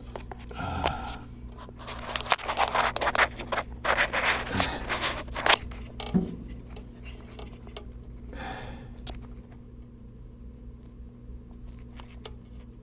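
Steady low hum of a running household furnace, with loud scraping and rustling for a few seconds in the middle and again briefly later.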